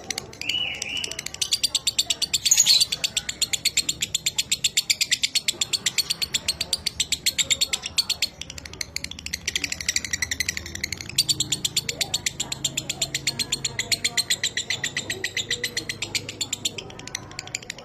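Lovebird singing its long chattering trill ('ngekek'): a fast, even run of sharp high notes, about eight to ten a second, breaking off briefly twice.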